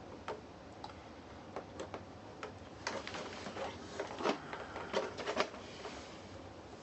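Scattered plastic clicks and scrapes as a guitar pick is worked into the seam of an electric unicycle's plastic shell to pry its retaining tabs loose. A denser run of clicks comes in the middle, with the sharpest snaps near the end.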